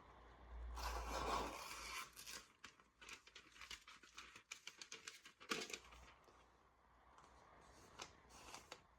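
A freshly sharpened chef knife push-cutting through a sheet of paper: a soft rustle about a second in, then a run of fine crackling and snicking as the edge slices along, with a few more snicks near the end. This is a sharpness paper test off an 800-grit stone, and the edge catches in the paper along the way.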